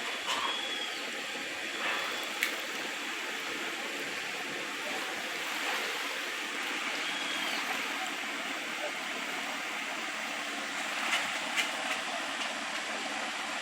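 Steady waterfront ambience: an even rushing hiss of water and air, with a few faint short high chirps and a few light clicks.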